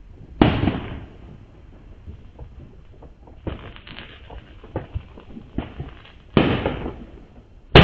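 Illegal fireworks going off around the neighborhood. A sharp bang comes about half a second in, followed by a rapid string of crackling pops around three and a half seconds and scattered single pops. Two more bangs follow near the end, the last the loudest, each dying away in an echoing tail.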